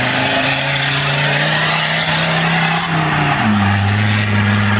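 Off-road race car's engine running hard as the car powers through a muddy corner and drives away. The engine note climbs slightly, then steps down in pitch about three and a half seconds in, over a steady rushing noise.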